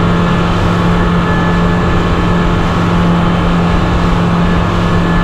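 Suzuki outboard motor running steadily at cruising speed, its even engine tone over a constant rush of noise as the boat planes across open water.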